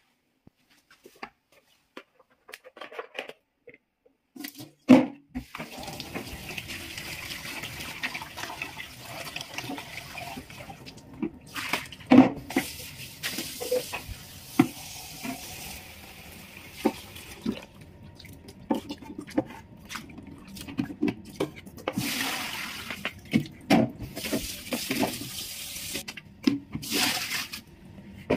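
Tap water running into a stainless steel kitchen sink while cut cucumber pieces are rinsed in a plastic colander, with scattered knocks and rattles of the colander and vegetables. The running water starts about five seconds in, just after a single louder knock.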